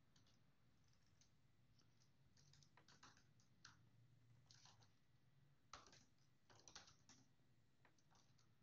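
Faint, scattered keystrokes on a computer keyboard, coming in short irregular clusters with the sharpest taps a little before the middle and around six to seven seconds in.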